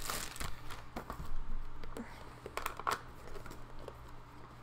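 Packaging of a boxed action figure being handled: a few scattered clicks and rustles of plastic and cardboard.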